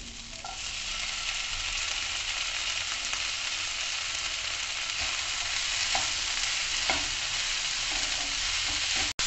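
Vegetable stuffing mixture sizzling steadily in a non-stick frying pan, the sizzle building over the first second. Boiled sweet corn is stirred through with a spatula, which taps lightly against the pan a few times in the second half.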